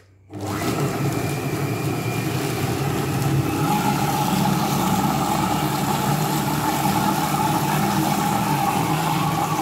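SilverCrest Monsieur Cuisine Connect food processor running its blade at speed 7, blending minced chicken with bread, cream cheese and milk into a thick paste. A steady, loud motor whir with the mixture churning starts almost at once and holds even.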